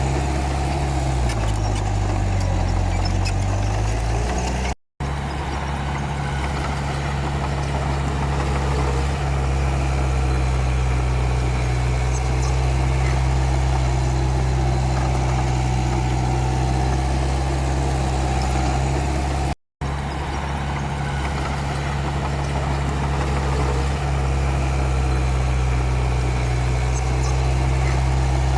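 Komatsu D31P bulldozer's diesel engine running steadily, its note dipping and recovering between about one and four seconds in. The sound drops out for a split second twice.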